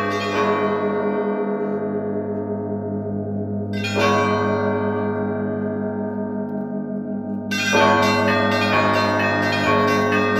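Orthodox monastery bells ringing. A deep bell's tone hangs throughout under a pulsing ring of middle bells. Fresh strikes of the higher bells come at the start, at about four seconds and again near eight seconds, each dying away before the next.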